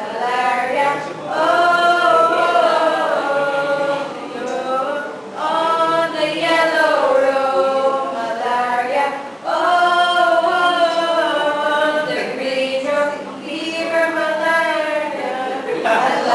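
A small group of mixed voices, mostly women, singing together without accompaniment, in long held phrases with short breaks between them.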